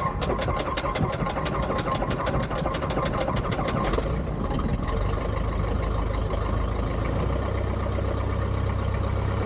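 Piper J3 Cub's engine running at low revs after start-up. For about four seconds it gives a rapid, regular clatter of about nine beats a second, then it settles into a steady low drone.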